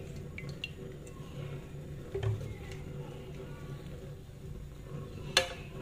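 Cooking oil poured from a plastic bottle into a nonstick frying pan: a quiet pour with a few light ticks. A single sharp click near the end.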